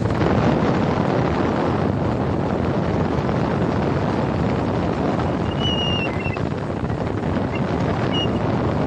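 Wind buffeting the microphone and the noise of a vehicle travelling along a road: a steady, loud rush. A few short high-pitched chirps come in past the middle.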